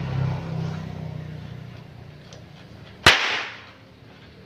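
A single sharp crack of a pecut, a long Javanese whip used in Ponorogo reog, about three seconds in, dying away within half a second.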